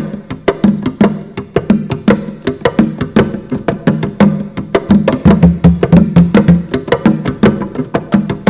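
Wooden box drum played with the bare hands in a fast, busy rhythm of several strokes a second, each stroke giving a short, pitched knock. The notes drop lower and grow louder for a stretch past the middle.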